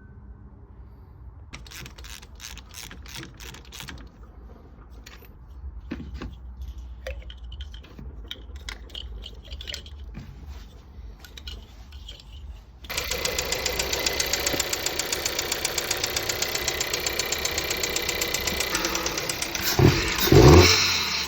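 Golf 7 1.2 TSI four-cylinder turbo petrol engine running, at first a low hum with scattered clicks, then abruptly much louder with a fast, even ticking, and a few heavy low thumps near the end. The owner says this engine misfires and leaks oil.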